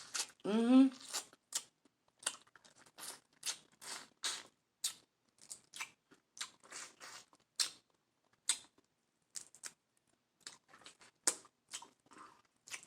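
Close-miked eating sounds from a seafood boil: an irregular string of short wet clicks and crunches as shrimp is pulled apart and chewed. A brief hummed vocal sound about half a second in.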